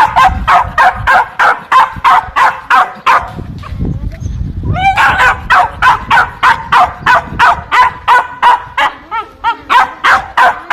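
Dog barking in a steady run, about three barks a second, with a short pause around four seconds in. Near the end there is a brief wavering whine before the barking picks up again.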